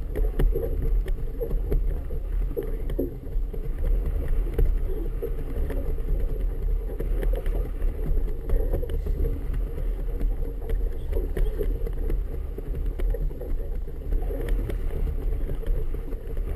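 Wind and choppy water around a motorboat: a steady low rumble of wind on the microphone and waves slapping the hull, with scattered small knocks.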